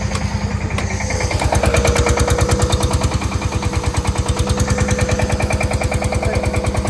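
An engine running steadily with a rapid, even chugging and a steady whine over it, growing louder about a second and a half in.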